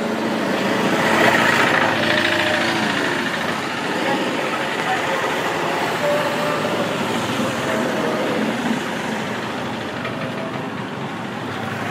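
Street traffic: the steady noise of vehicles with their engines running, passing along a town road.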